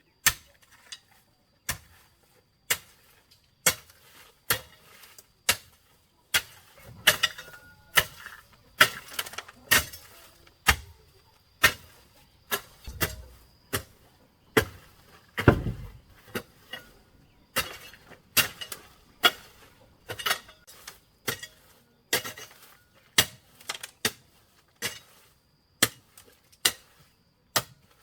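Repeated hard blows of a hand tool striking wood, a sharp impact about once a second in a steady working rhythm.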